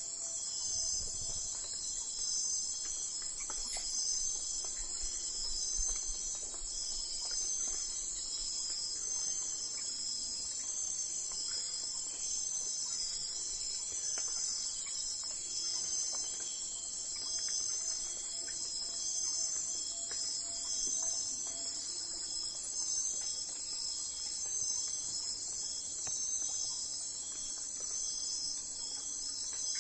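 Dense chorus of crickets chirping steadily in a high pitch, in an even, regular pulsing rhythm.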